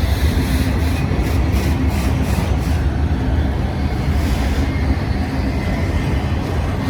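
Freight train cars rolling past at close range, a steady low rumble of wheels on the rails.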